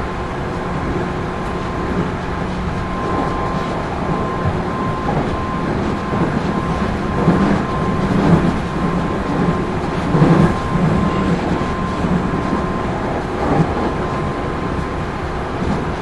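Running noise inside the motor car KuMoHa 213-3 of a JR 213 series electric train under way: a steady rumble of wheels on rail with a faint steady whine. Several louder rail-joint knocks come near the middle.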